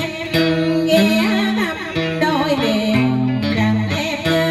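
Live guitar playing a melody of bent, wavering notes over held low bass notes: an instrumental passage between sung lines of a Vietnamese folk-style song.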